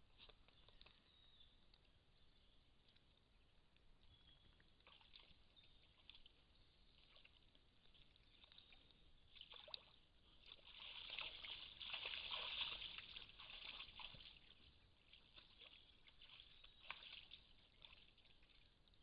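Sambar deer splashing and sloshing as they wade in a muddy puddle. The splashing is faint with scattered small ticks, then louder for a few seconds about halfway through.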